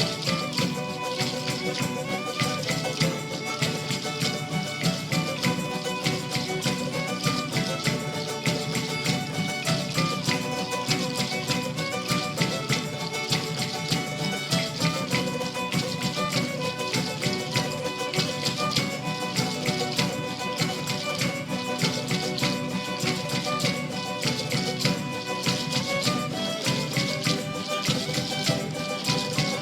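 Traditional folk music played live by a band, with melodic lines over a steady beat.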